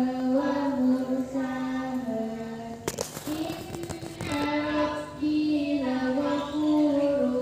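Background music: a high voice sings a slow melody in long held notes that step up and down. A brief burst of crackling noise cuts through about three seconds in.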